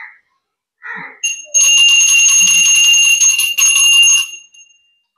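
A metal temple bell rung rapidly for about three seconds, starting a little over a second in, with a steady high-pitched ring that fades out near the end.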